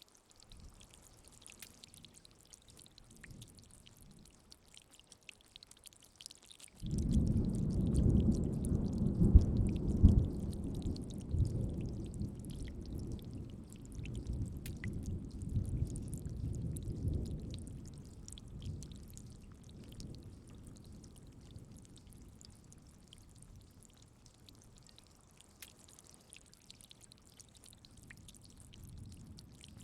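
Rain falling with a faint, steady hiss. About seven seconds in, a roll of thunder breaks in suddenly, rumbling low and loud for a few seconds before slowly dying away.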